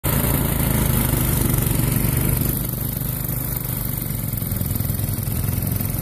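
Red two-stage snowblower's small gasoline engine running steadily with a low hum while its auger and chute throw snow; the sound eases a little about two and a half seconds in.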